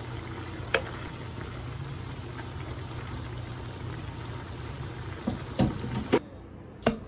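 Beef bulgogi sauce simmering and bubbling in a wide pan, over a steady low hum. A wooden spoon knocks and scrapes against the pan a few times, once early and several times near the end as the mixture is spread out. The simmering sound cuts off abruptly about six seconds in.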